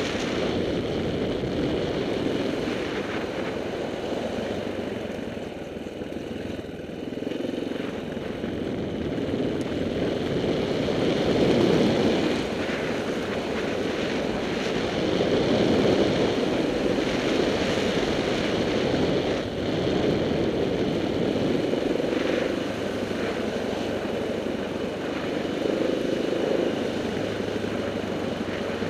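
KTM 690 Enduro R's single-cylinder four-stroke engine running while the bike rides a dirt road, mixed with wind rush on the microphone. The engine rises and falls with the throttle, easing off about six seconds in and picking up again around twelve and sixteen seconds in.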